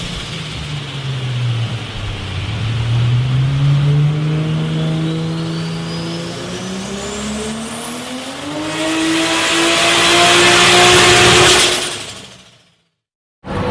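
Turbocharged car engine accelerating, its pitch climbing steadily for about eight seconds with a high whistle rising above it, then at its loudest before fading out.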